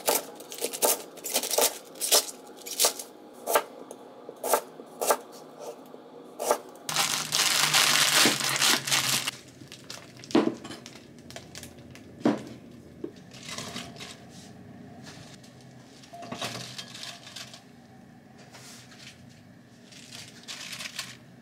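Kitchen knife chopping napa cabbage on a cutting board: about a dozen sharp strokes at a steady pace of roughly one and a half a second. Then a dense ripping rustle for about two seconds as maitake mushrooms are pulled apart by hand, followed by scattered knocks and soft rustles of vegetables being handled.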